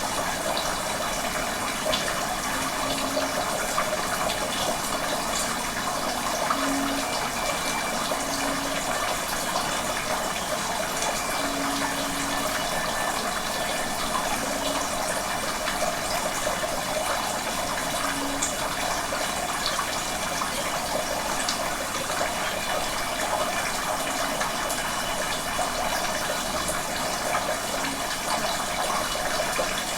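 Running water in a steady, even rush.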